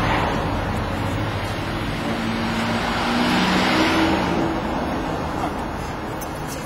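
A car passing by on a wet street: tyre and engine noise swells to a peak about three to four seconds in, then fades away.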